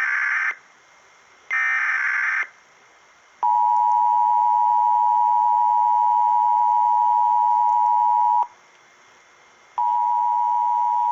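Emergency Alert System alert: two short bursts of the screechy digital SAME data header, then the steady two-tone EAS attention signal (853 and 960 Hz). The attention signal holds for about five seconds, cuts off abruptly, and starts again about a second later, near the end.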